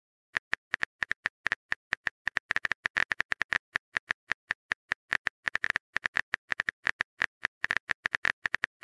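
Keyboard typing sound effect: a fast, uneven run of short clicks, about seven a second, each keystroke a separate tap with silence between.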